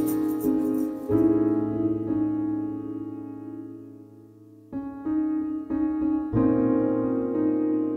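Soft background music of slow, held chords that ring on and fade away. One long chord dies out over several seconds, then a few new chords come in close together.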